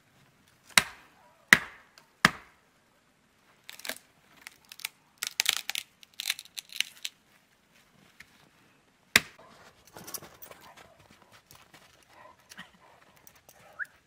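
Dry wood being broken off a small tree by hand: three sharp cracks in quick succession near the start, a stretch of rustling and crackling twigs, then one more loud crack about nine seconds in, followed by softer rustling.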